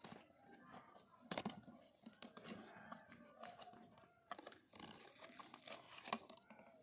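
Packaging being handled and opened: cardboard and plastic rustling and crinkling, with scattered sharp clicks and knocks, the loudest about a second and a half in and again about six seconds in.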